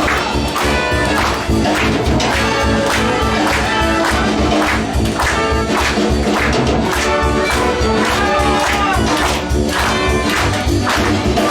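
Music with a steady percussive beat under a wavering melodic line.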